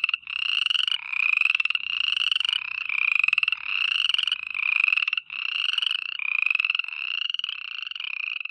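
A chorus of frogs calling at night. High-pitched, pulsed, trilling calls, each rising slightly in pitch, overlap and follow one another in a continuous run.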